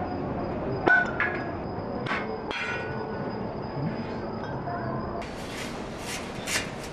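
Perforated sheet metal knocking and clinking as pieces are handled and cut with hand shears, with a sharp metallic knock about a second in and a few ringing strikes after it. Near the end, a quick series of lighter metallic clicks.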